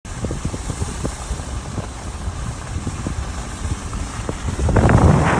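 Wind buffeting the microphone over a low rumble, with irregular low thumps and a swell to its loudest a little before the end.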